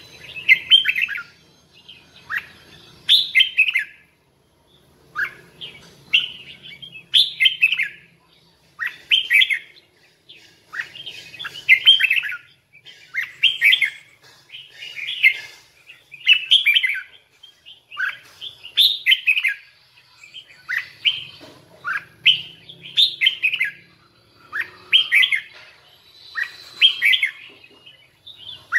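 Red-whiskered bulbul singing: short, bright, warbled phrases repeated over and over, about one every second and a half.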